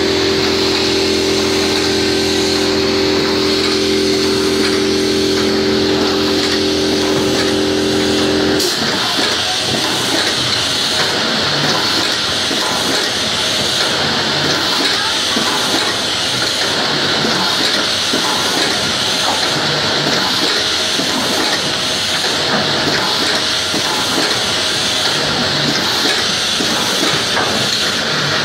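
A 10-station paper collating machine running: a steady hiss of air through its feed hoses over the machine's running noise. A steady hum under it stops abruptly about nine seconds in, and the hiss and a grainier mechanical noise carry on.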